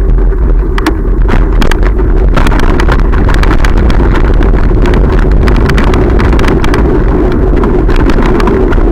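Wind and road rumble on a bicycle-mounted camera's microphone as the bicycle rolls along, with frequent short clicks and rattles that grow busier about two seconds in.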